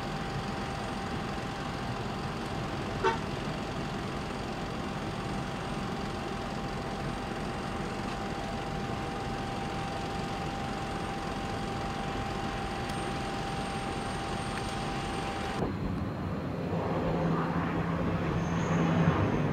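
Steady mechanical noise with a constant high whine and a single click about 3 s in. About 16 s in it cuts to the rising noise of a Boeing 767's jet engines approaching.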